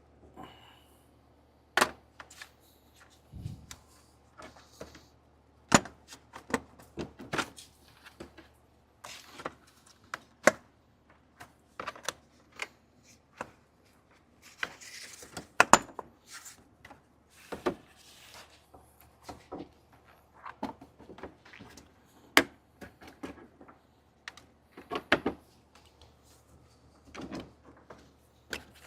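Irregular sharp clicks and knocks of plastic push-clips being pried out and the plastic grille panel being handled on a Jeep Wrangler JL.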